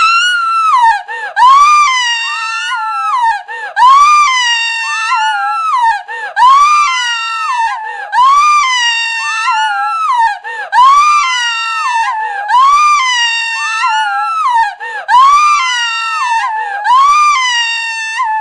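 A woman screaming in terror: long, high-pitched screams one after another, about every two and a half seconds, with short breaks between them.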